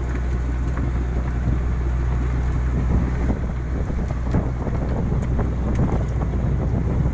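Steady low hum of a container ship's machinery heard on board.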